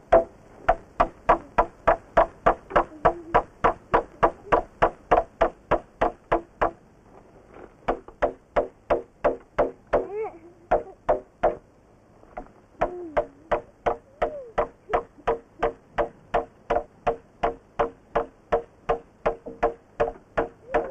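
A child knocking steadily on wooden planks, about three knocks a second, each knock with a short ringing tone; the knocking stops briefly about seven seconds in and again near twelve seconds, then picks up again.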